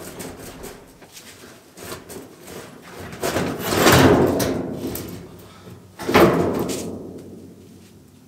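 Steel roof skin being pried and flexed off its inner bracing: scattered metal clicks, a long loud rush of flexing and scraping sheet metal about three seconds in, and a sudden clang at about six seconds that dies away.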